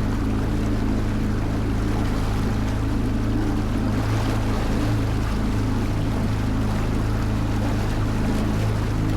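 Motorboat engine running at a steady speed while under way, over a steady hiss of water and wind.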